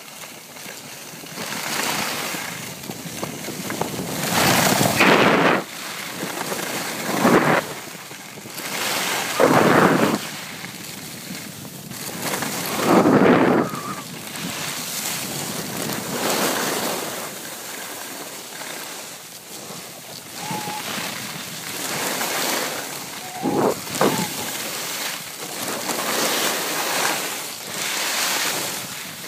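Skis carving and scraping over packed snow on a groomed slope, with a loud swoosh at each turn, several seconds apart, over a steady rush of wind on the microphone.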